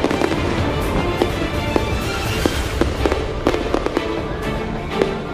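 Aerial fireworks bursting, a rapid series of sharp bangs and crackles, heard over background music.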